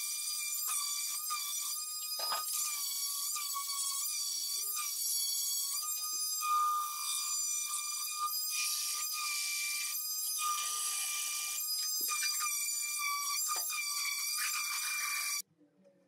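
Red electric random orbital sander running on a wooden drawer box: a steady high-pitched motor whine that wavers slightly in pitch, with frequent short knocks as the pad moves over the wood and box edges. The whine stops abruptly near the end.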